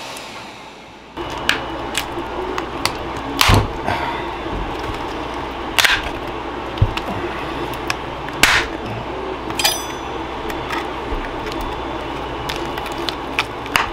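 A benchtop fume extractor's fan starts suddenly about a second in and runs steadily. Over it come sharp clicks and knocks of the plastic battery case being handled and pried apart.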